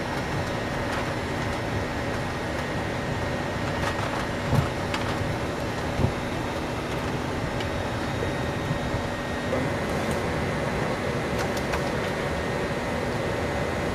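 Steady cockpit noise of a Gulfstream G550 business jet on the ground, its Rolls-Royce BR710 turbofans and air conditioning making an even hum. Two light thumps come about four and a half and six seconds in, and one of the hum's tones stops about nine and a half seconds in.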